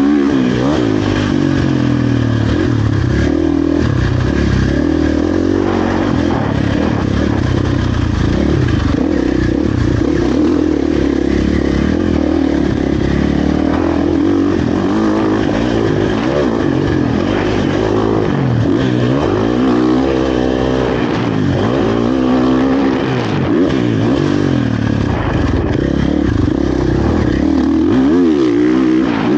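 2023 KTM 450 SX-F's single-cylinder four-stroke engine revving hard and easing off again and again as the throttle is worked around the motocross track.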